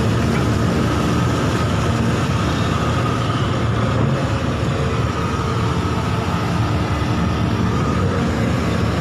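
Excavator's diesel engine running steadily, with a faint steady whine above the rumble.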